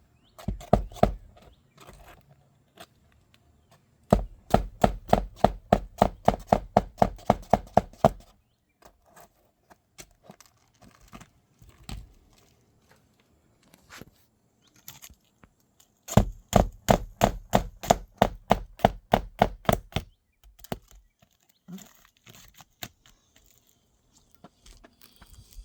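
Rapid hammer strikes on an asphalt shingle roof, about five a second in two runs of roughly four seconds each, with a few single strikes near the start and in between: working into the nail bed under a damaged shingle to get at its nails.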